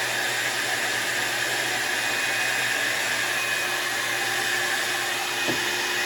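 Handheld hair dryer running steadily on the wig, a constant blowing rush.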